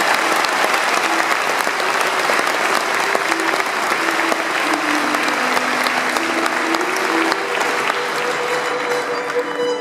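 Audience applauding steadily, thinning out near the end. A few soft held instrument notes sound under the clapping from about midway.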